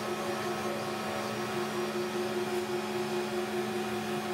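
Multi-spindle CNC router milling wooden cabriole-leg blanks on its rotary axes: the spindle motors hold a steady whine of several pitches over the rushing noise of the cutters chipping wood.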